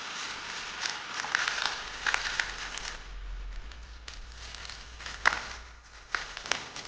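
Packaging being handled during an unboxing: crinkling and crackling wrapping, then a few sharp clicks and taps near the end.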